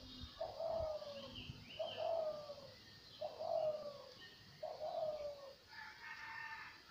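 Dove cooing: a falling note repeated four times, about one every second and a half. Fainter, higher chirps of small birds come in between, and a brief higher call follows near the end.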